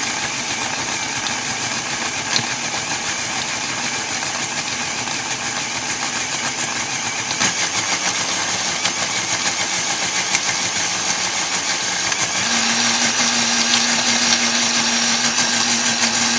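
Countertop blender running steadily, puréeing tomatoes, red pepper and celery into a thick dip. About twelve seconds in it gets a little louder and takes on a steady hum.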